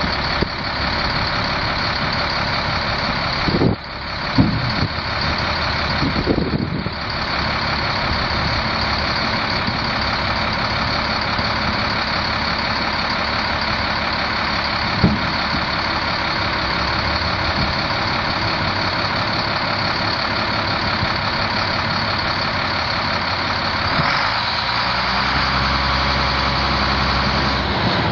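Caterpillar 3126 inline-six turbo diesel of a Ford LNT8000 dump truck running steadily, with a few short knocks in the first several seconds. The engine note turns deeper about 24 seconds in.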